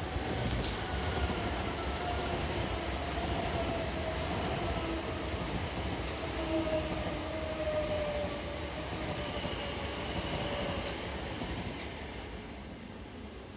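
Southern Class 377 Electrostar electric multiple unit running past along the platform: a steady rush of wheels on rail with a faint motor whine that slowly falls in pitch. It fades away near the end.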